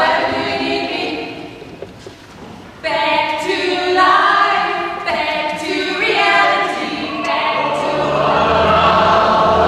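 A group of women singing together, mostly unaccompanied, in sung phrases with a short break after the first one. Near the end a fuller, noisier sound builds under the voices.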